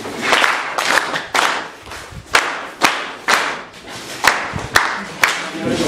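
A class of schoolchildren clapping together in a steady rhythm, about two claps a second, applauding a classmate.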